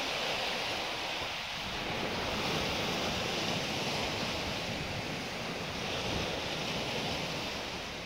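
Small ocean waves washing against the shore, a steady hiss of moving water that swells slightly a couple of seconds in, with wind rumbling on the microphone.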